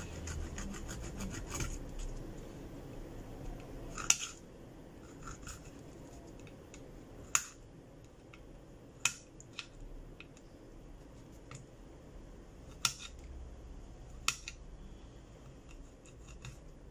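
A cloth rubbing and scraping along a phone's metal mid-frame, cleaning leftover screen adhesive from the LCD seat. It starts with a quick run of short scraping strokes, then several sharp clicks follow, the loudest about four seconds in.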